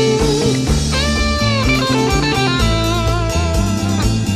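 Background blues-rock music: an electric guitar playing sustained notes with pitch bends over bass and a steady beat.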